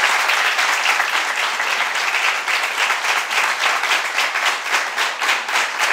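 A large seated audience applauding, many hands clapping in a steady dense patter.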